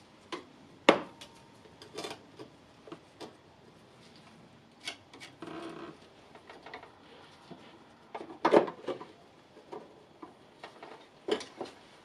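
Scattered clicks, knocks and short rubbing scrapes from hand tools working at the top of a scooter's front fork tube to get the fork spring out. The sharpest click comes about a second in, with another burst of knocks a little past the middle.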